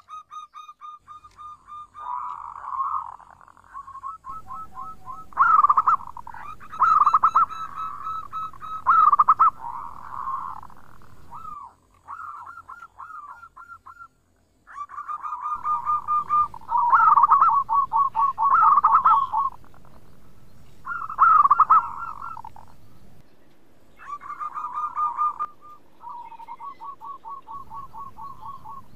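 Zebra dove (perkutut) cooing: phrases of rapid, rolling pulsed notes repeated every few seconds, some louder than others, with a short pause around the middle.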